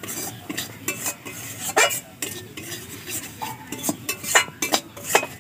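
Metal spatula scraping and clicking irregularly against a metal kadai as it stirs semolina being dry-roasted in ghee and butter.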